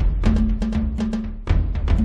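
Instrumental background music with a steady drum beat over a held low note.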